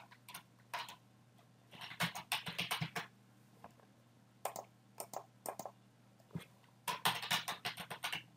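Computer keyboard typing: a quick run of keystrokes about two seconds in, a few single clicks, then another run of keystrokes near the end.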